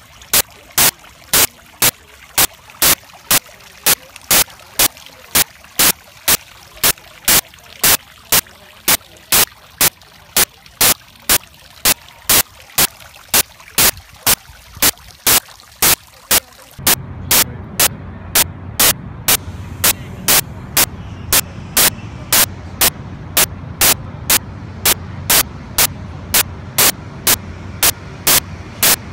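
Sharp clicks repeating very evenly, a bit more than twice a second. A low steady hum rises under them about two-thirds of the way through.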